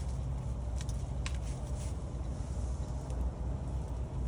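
Wood fire burning in a small camp stove: a steady low rumble with two short crackles about a second in.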